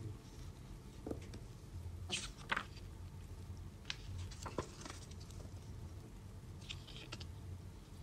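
Glossy magazine pages rustling and crinkling as they are handled and turned, in several short rustles spread through, over a faint steady low hum.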